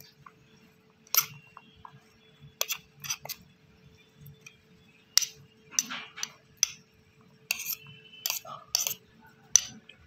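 Steel spoon clinking and scraping against a steel plate as a mix of boiled black chickpeas and chopped vegetables is stirred: a dozen or so irregular sharp clinks, several with a short metallic ring.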